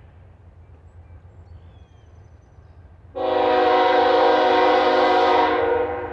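Diesel locomotive air horn sounding one long blast of about three seconds, starting about three seconds in, several steady notes at once, then fading away near the end.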